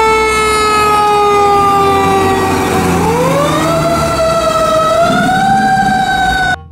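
Fire ladder truck's siren wailing over the rumble of the truck's engine: the pitch falls slowly, rises again about three seconds in, climbs once more near five seconds, then cuts off suddenly near the end.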